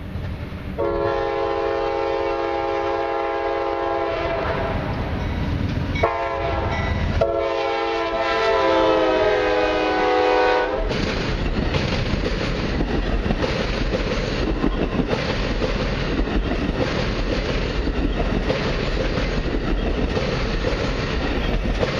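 Amtrak GE P42DC diesel locomotive sounding its air horn in long blasts for about ten seconds while approaching and passing at speed. The horn changes pitch partway through, then gives way to the steady rumble and wheel clatter of the bilevel passenger cars going by.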